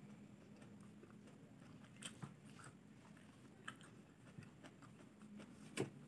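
Quiet chewing close to a clip-on microphone: soft mouth clicks while a bite of chicken adobo and cabbage leaf is chewed, with a sharper click near the end.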